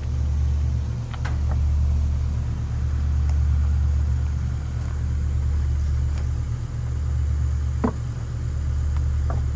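Skid steer engine running steadily with a low hum, with a few brief knocks about a second in and near the end as the track is worked back onto the machine.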